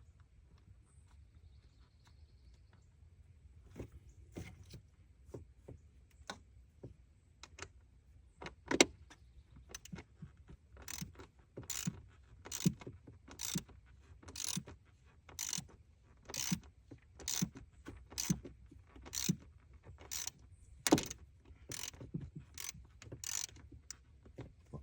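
Small 1/4-inch hand ratchet working a fastener in repeated clicking strokes, about one a second, after a few scattered clicks and one sharper knock of tools against the engine parts.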